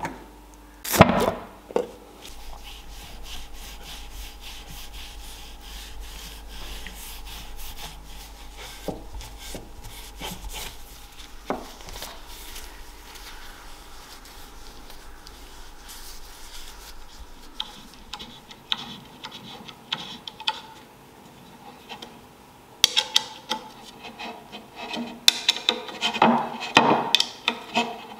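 A sharp clack about a second in as a screwdriver pries the lid off a tin of wood finish, then a long stretch of a rag rubbing finish into a wooden bow. Near the end, louder irregular knocks and scrapes of wooden parts being handled.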